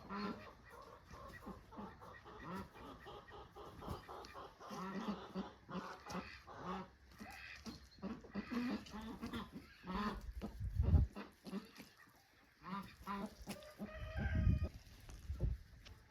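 Domestic chickens clucking, a run of short, repeated calls. Two low thumps about ten and fourteen seconds in are the loudest sounds.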